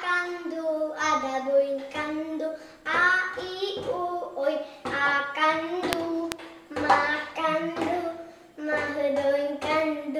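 Children singing a song in phrases, with hands patting on a tabletop and two sharp taps around the middle.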